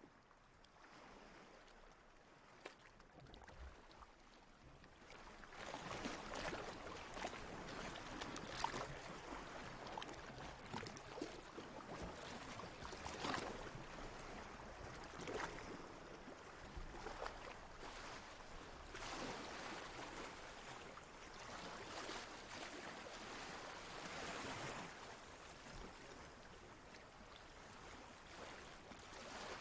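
Water lapping and sloshing in gentle swells every two to three seconds. It fades in over the first few seconds.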